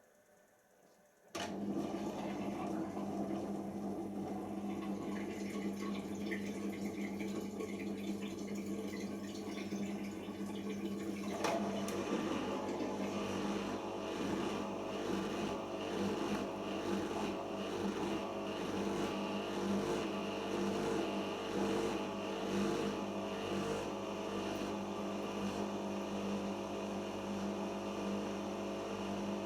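Siemens iQ washing machine starting its post-rinse drain-and-spin stage: the machine starts abruptly about a second and a half in and runs with a steady hum. About eleven seconds in the sound changes and grows fuller and slightly louder as the next part of the stage starts.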